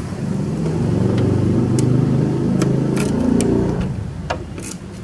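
A motor vehicle engine running, swelling over the first second, holding steady, then fading after about four seconds, with several sharp clicks, the loudest near the end.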